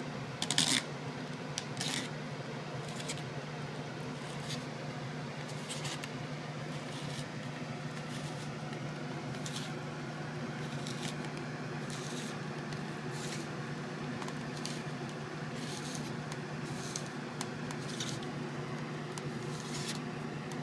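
Handheld cone spiralizer cutting a zucchini into ribbons: short crisp scraping cuts about once a second, unevenly spaced, as the squash is twisted down through the blade. A steady low hum runs underneath.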